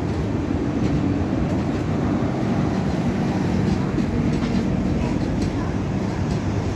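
Passenger train coaches running past at speed, a steady rumble of wheels on rails with scattered clicks and knocks as the wheels cross rail joints.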